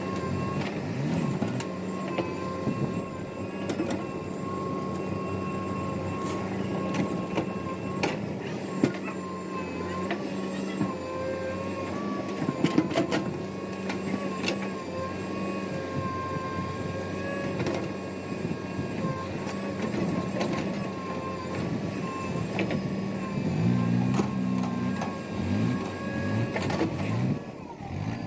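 Heavy machinery engine running steadily with a constant high whine, with a few sharp knocks about nine and thirteen seconds in and the engine note wavering near the end.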